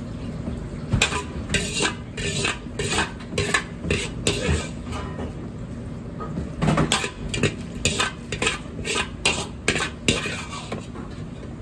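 Large metal ladle scraping and clanking against a big wok as fried rice is scooped out, in two runs of quick strokes: one about a second in and another starting near seven seconds.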